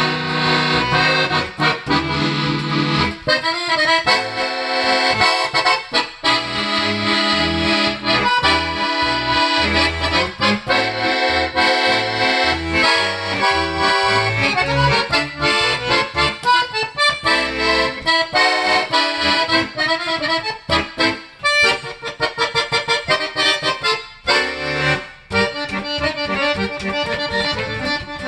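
Italian Vercelli bayan (button accordion), freshly given a full tuning, played continuously: quick runs and chords in the right hand over a moving bass line, with a few brief breaks in the second half.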